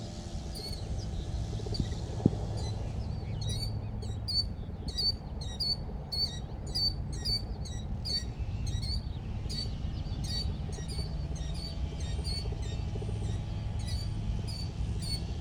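A small bird chirping over and over, short high chirps at about two a second, beginning a couple of seconds in, over a steady low hum. One sharp click just after two seconds in.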